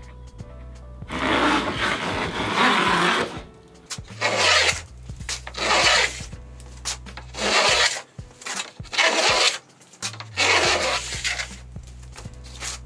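Stanley No. 45 combination plane cutting a molding profile along a wooden board: about seven rasping strokes, the first and longest lasting about two seconds and the rest shorter. Low background music plays underneath.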